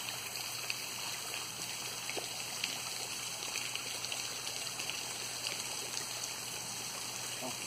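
Running water trickling steadily, from a small waterfall feeding a garden pond.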